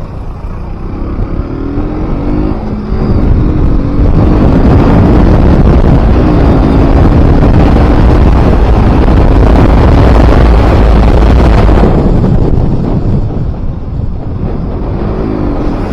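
KTM RC 200's single-cylinder engine pulling harder over the first few seconds, then heavy wind noise on the microphone at speed drowning most of it, easing off about twelve seconds in as the engine note comes back.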